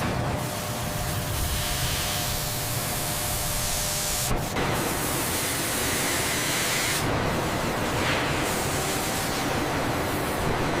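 Steady hissing noise of factory machinery at work, like a jet of air or spray. Its tone changes abruptly about four and a half seconds in and again about seven seconds in.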